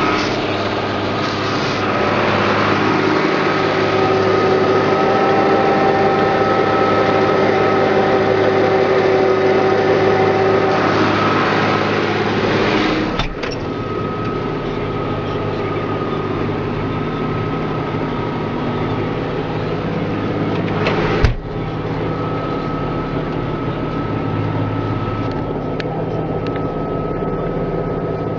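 John Deere 7700 tractor's six-cylinder diesel running steadily under load while working a Maschio Gabbiano rotary harrow, heard from inside the cab, with a steady whine over the engine. The sound breaks off sharply twice, about halfway and about three-quarters of the way through.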